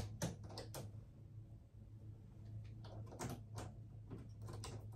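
Short clicks and light knocks of a Cricut cutting machine's blade clamp being opened and a rotary fabric blade seated in it, in small clusters near the start, around three seconds in and near the end, over a steady low hum.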